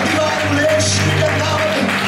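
Church worship music: a keyboard playing a steady low bass, with a man singing long held notes into a microphone over it.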